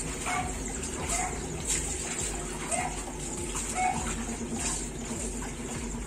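Whirlpool top-loading washing machine running its wash action: a steady motor hum with water swishing in the tub. The machine is running under manual switch control, its faulty automatic controller board having been bypassed.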